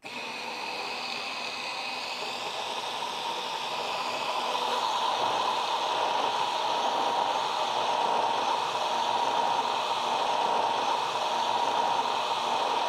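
Stick blender switched on and running steadily with its blade held at the bottom of a jar of egg yolk and oil, a steady whir over a churning liquid sound as the mix starts to emulsify into aioli. It grows a little louder a few seconds in.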